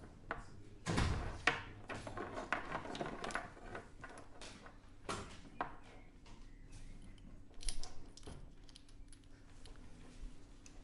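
Handling noise from cables and connectors being worked on: scattered clicks and knocks, with a heavier bump about a second in and another cluster near eight seconds, over a faint steady hum.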